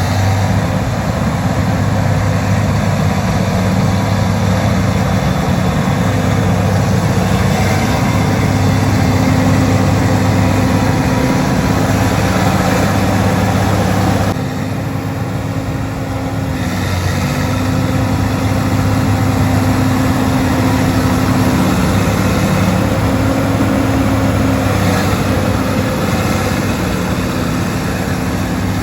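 Bulldozer's diesel engine running hard under load while dragging a heavy log. Its note shifts a few times, and about halfway through it drops for a couple of seconds before picking back up.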